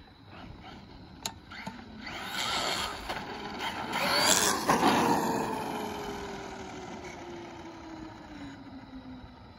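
Traxxas Maxx RC monster truck on 4S brushless power speeding past on wet pavement. The motor whine and tyre hiss rise to a peak about four to five seconds in. After that the whine falls steadily in pitch and fades as the truck moves away.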